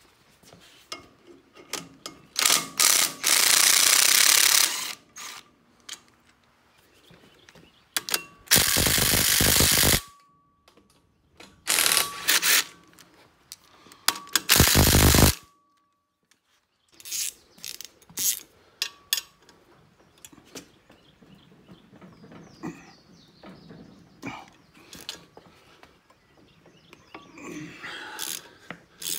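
A Ryobi cordless driver running a socket on the steel pin-retainer bolts of a mini excavator's bucket linkage, in four bursts of one to two seconds in the first half. After that, a hand ratchet wrench clicks in short runs on the same bolts.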